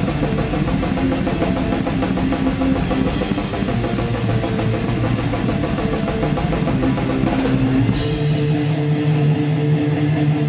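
Black metal band playing live, heard close from the drum kit: fast drumming with distorted electric guitar. About eight seconds in the fast drumming stops, leaving sustained guitar chords with a cymbal struck every second or so.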